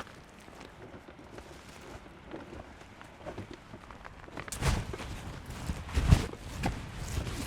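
Irregular rustling steps and knocks of a person moving about on the forest floor. Faint small clicks at first, then louder, uneven footfalls from about halfway in.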